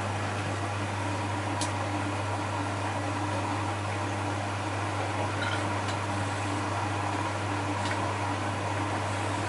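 Bosch Maxx WFL 248Y washing machine running with a steady, even hum, with a few faint clicks.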